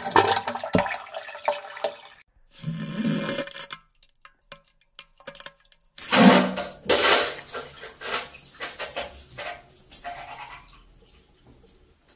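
Several bursts of rushing, hissing noise. The loudest starts about six seconds in and fades away over a few seconds.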